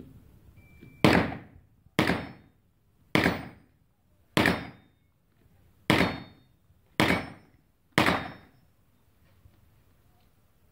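Seven 9 mm shots from a Glock 34 pistol fitted in a carbine conversion kit, fired at about one-second intervals with slightly uneven spacing, each with a short echoing tail from the indoor range.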